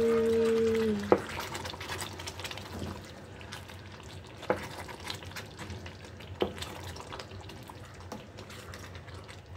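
Spoon stirring yogurt into a simmering chicken masala in a pan, with a soft sizzle and a few clinks of the spoon against the pan. A steady hum, the loudest sound, holds for about the first second and stops with a click.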